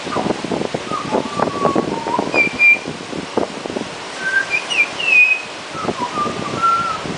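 Pied butcherbird singing: a series of clear, flute-like whistled notes at a few different pitches, some held briefly and some sliding. Wind gusts on the microphone throughout.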